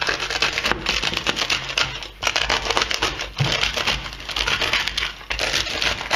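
The crisp crust of a fresh-baked German bread roll crackling and crunching as it is split open, a dense run of small crackles with two short pauses.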